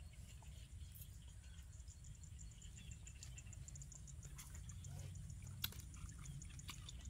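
Quiet open-air background: a low rumble under a faint, rapid, high-pitched ticking, with a few small clicks and handling noises from people picking apart grilled fish by hand, one sharper click about five and a half seconds in.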